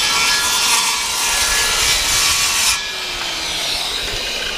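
DeWalt corded circular saw ripping a thin strip off a wooden board, with loud blade-in-wood cutting noise. The cut ends a little over halfway in, and the blade's whine falls away as the motor spins down.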